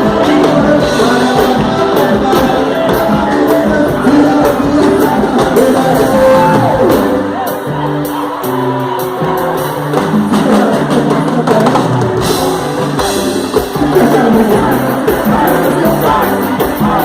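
Upbeat gospel band music with singing over a drum kit's steady beat.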